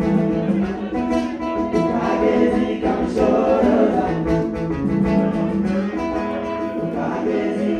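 Music: a song with singing over instrumental backing.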